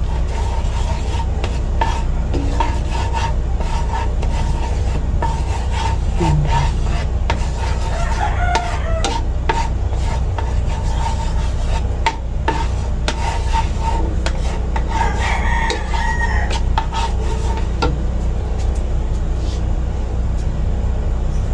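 Wooden spatula scraping and stirring melting butter in a nonstick frying pan over a gas burner, with many short scrapes and taps against the pan over a steady low hum.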